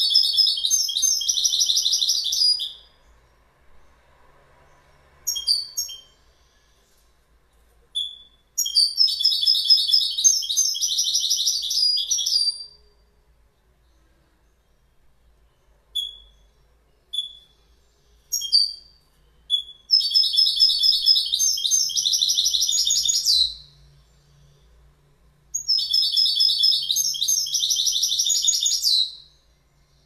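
European goldfinch singing: four bursts of rapid, high-pitched twittering song, each about three to four seconds long, with short single call notes in the gaps between them.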